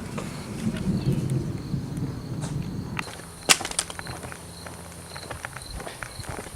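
Night insects chirping: a high chirp pulsing about twice a second over a steady high buzz. A low rumble cuts off about three seconds in, followed by a sharp knock and scattered footstep-like clicks.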